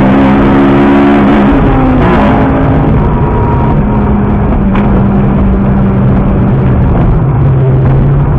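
Car engine running hard, loud and steady, heard from inside the car through a dashcam. Its pitch dips about seven seconds in and rises again at the end.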